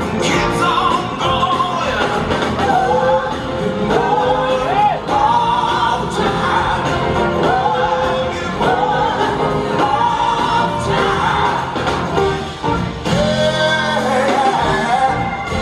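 A live band plays a soul-rock song: a male lead vocal with backing singers over drums, guitar and a horn section.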